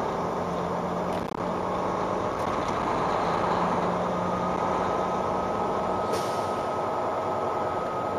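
Mack CXU613 tractor's diesel engine running and road noise heard from inside the cab while driving in traffic. About six seconds in comes a brief sharp hiss, and the deep engine rumble drops off.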